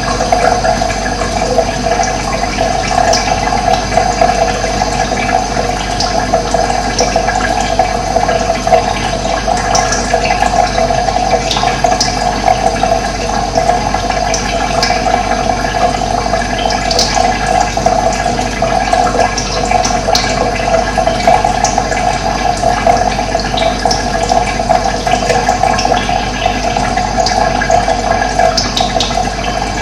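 Steady, loud rush of running water, with short, high bird chirps here and there over it.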